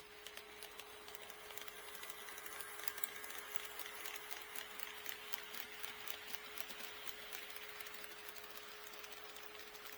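HO scale model train running past on KATO Unitrack: a whirring motor and gears with rapid clicking of wheels over the rail joints, building up about a second in and easing slightly near the end. A steady tone sounds underneath.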